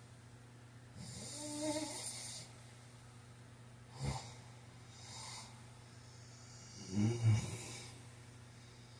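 A man snoring in his sleep: a long snore with a rising tone about a second in, a short sharp snort near the middle, and a louder, deeper snore in two pulses near the end.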